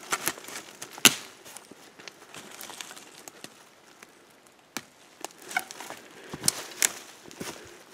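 Scattered sharp snaps and knocks, the loudest about a second in, over light rustling of dry leaves and twigs underfoot: footsteps moving through forest leaf litter.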